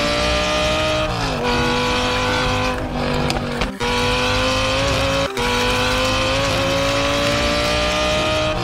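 Supercar engine accelerating hard: a steady engine note climbs in pitch and drops sharply at each gear change, about a second in, near four seconds and past five seconds.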